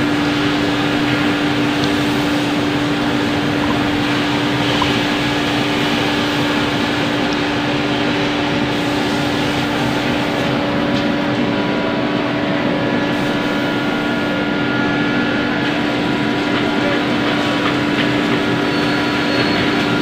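Electric-motor-driven wood dust collector running steadily: an even rush of air from the fan with one constant tone over it.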